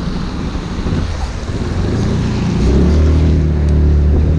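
Motor scooter engine running under way, with wind buffeting the microphone. About two seconds in the engine note comes up louder and then holds steady as the scooter pulls along.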